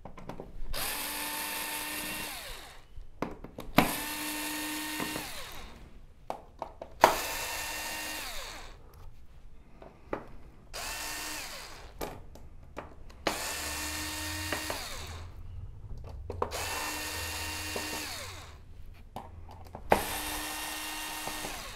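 Small cordless electric screwdriver running in seven short bursts of one to two seconds each, backing the screws that hold a TV main board out of its metal chassis. Each burst is a steady motor whine.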